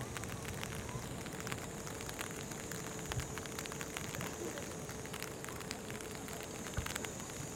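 Rain falling on an umbrella held over the microphone: a steady hiss of rain with many small sharp ticks of drops striking the canopy.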